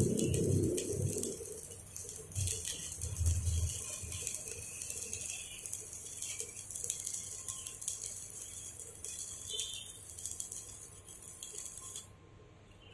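Stick (MMA) arc welding with a 2 mm electrode from a Daiden MIGi 130 inverter welder set at about 30: the arc crackles and sizzles steadily and is called stable, with a few low thumps about three seconds in. The crackle cuts off suddenly near the end as the arc is broken.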